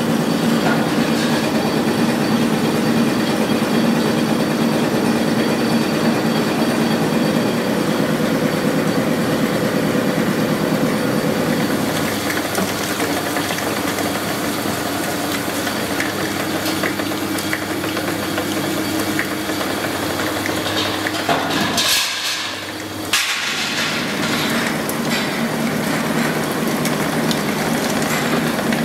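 Roll-forming machinery running as steel rim strip is drawn through its rollers, a steady mechanical hum. The sound changes about twelve seconds in and drops out briefly about three-quarters of the way through.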